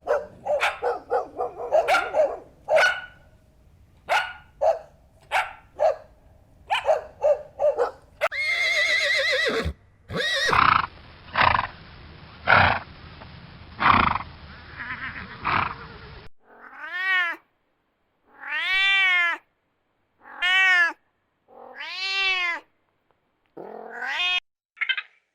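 A series of animal calls from several spliced clips: many short calls at first, a noisier stretch in the middle, then five arched calls about two seconds apart, rising and falling in pitch.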